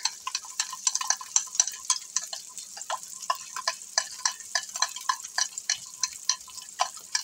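Metal spoon stirring Bisto gravy powder into water in a ceramic mug to make a slurry, clinking against the inside of the mug about four times a second. Lamb meatballs sizzle softly in butter in a cast iron frying pan underneath.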